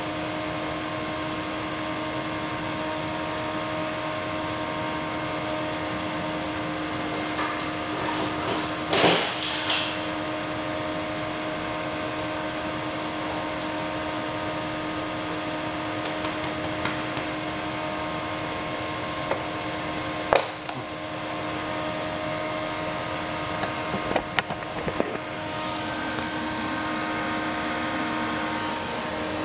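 Steady electrical hum with several faint steady tones from a running induction heater rig heating a can of water. A few sharp clicks and knocks come about a third of the way in, about two-thirds in, and again shortly after.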